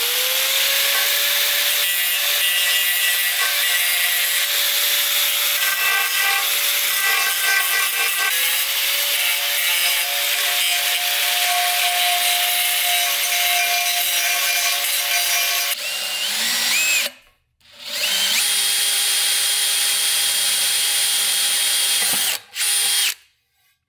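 Electric right-angle sander with a sanding disc spinning up and grinding steadily against an aluminium wheel rim, cleaning up the area around a crack. After it winds down and a short pause, an electric drill runs for a few seconds, boring a stop hole at the end of the crack, and stops shortly before the end.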